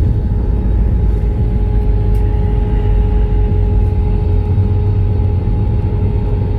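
Cabin noise of an Airbus A320-family airliner rolling down the runway after touchdown: a loud, steady low rumble of engines and wheels with a steady hum over it.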